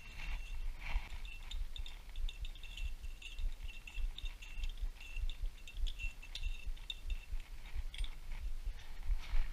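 Light metallic clinks and taps of hand tools and engine parts being handled, over dull low thumps, with a faint high steady whine in the background.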